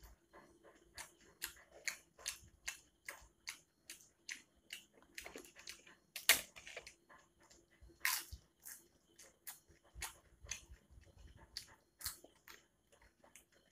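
Crisp food being bitten and chewed close to the microphone, with many short sharp crunches. The loudest crack, about six seconds in, is a papad (thin crisp lentil wafer) being broken by hand, and another loud crunch follows about two seconds later.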